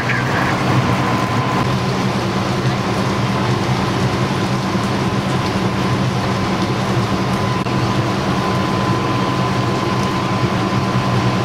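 Fire apparatus diesel engine running steadily, a low drone with a thin steady whine on top.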